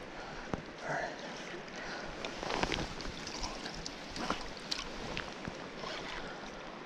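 Steady rush of a river's current, with scattered light knocks and rustles from handling gear close to the microphone.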